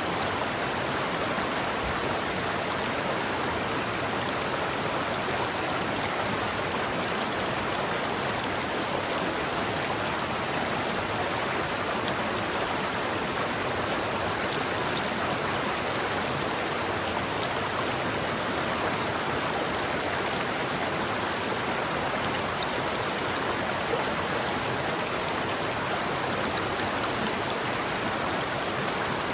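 River water flowing and rushing steadily over rocks, an even, unbroken wash of water noise.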